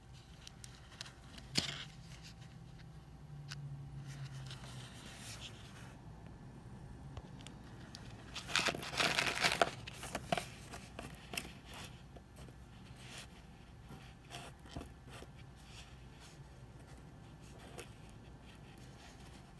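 Clear plastic zip bag crinkling in the hands while rough Mahenge garnet crystals are tipped out of it onto a hard surface. The crinkle and rattle are loudest in a dense burst about halfway through. Scattered light clicks follow as the stones are nudged about by fingertips.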